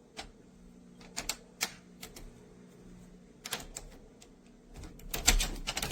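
A series of sharp clicks and knocks, scattered at first and then coming faster and louder near the end.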